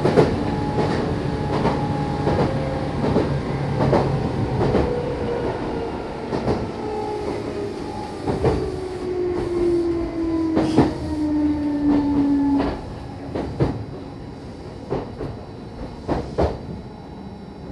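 Meitetsu Bisai Line electric train heard from inside the passenger car as it brakes: the motor whine falls steadily in pitch and cuts off about two-thirds of the way through. Wheels click over rail joints throughout, further apart as the train slows toward its stop.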